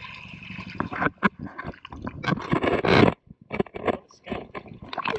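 Shallow seawater splashing and sloshing as a wader pushes a shrimp net through it, in irregular surges with the loudest about three seconds in.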